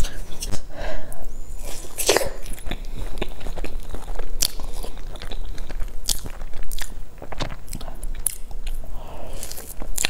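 Close-miked eating sounds: a person biting and chewing a soft layered crepe cake, with many short mouth clicks and smacks, one louder about two seconds in.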